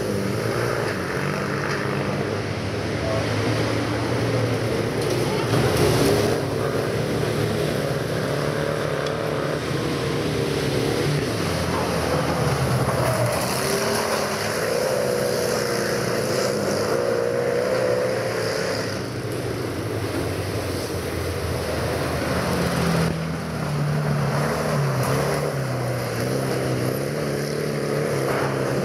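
VW Beetle racing cars' air-cooled flat-four engines running hard on a dirt autocross track, their pitch rising and falling as they rev up and ease off.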